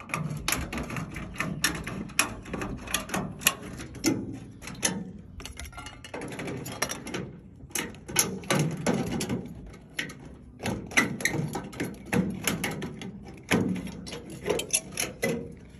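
Tin snips cutting and bending the end of a thin metal rain-gutter downspout: an irregular run of sharp metal clicks and crunches, with a pause of a second or two in the middle.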